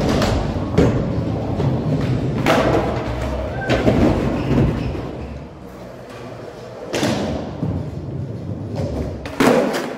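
Skateboard wheels rolling with a steady low rumble over a smooth concrete skatepark floor, broken by about six sharp thuds and clacks of the board hitting the ground as tricks are popped and landed.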